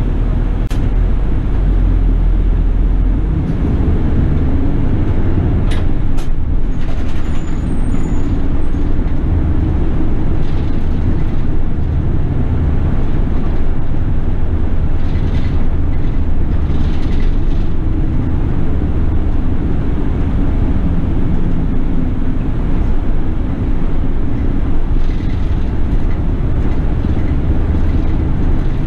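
City bus running along the road, heard from on board: a steady low engine and road rumble, with a few sharp knocks and a brief high squeal a few seconds in.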